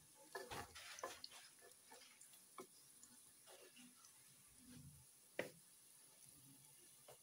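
Faint scrapes and taps of a spatula against a pot while chopped onions are stirred in frying oil, with one sharper knock about five seconds in.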